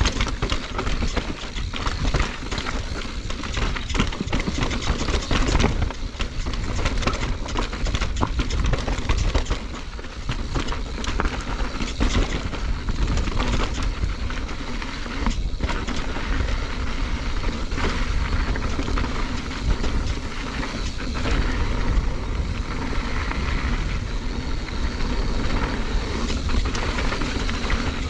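Mountain bike descending a rocky dirt trail: tyres rolling over gravel and rocks, with constant clattering from the bike over the bumps. Wind rumbles on the microphone throughout.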